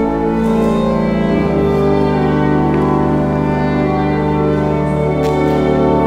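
Organ music playing slow, sustained chords, the bass note shifting to a new pitch about a second and a half in.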